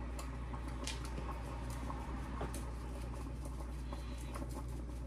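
Seasoning being shaken from a spice shaker onto raw fish in a foil pan: scattered light clicks and patter over a steady low hum.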